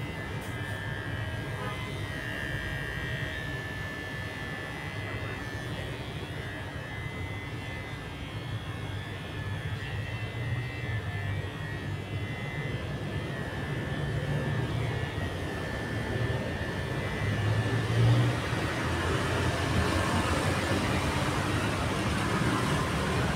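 Electric hair clipper running steadily while cutting hair, a constant motor buzz that grows louder over the last several seconds.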